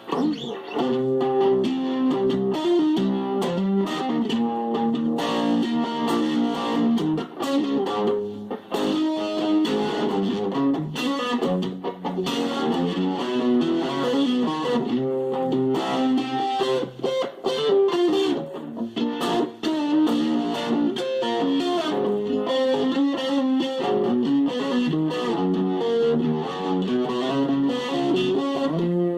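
Stratocaster electric guitar played on its neck pickup through a Chase Tone Fuzz Face replica fuzz and a KR Musical Mega-Vibe modulation pedal: a continuous run of fuzzy single-note lines and chords, with short breaks between phrases.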